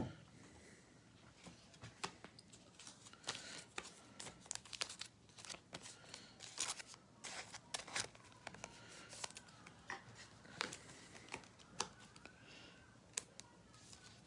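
Faint, irregular crinkling and clicking of trading cards and their plastic packaging being handled.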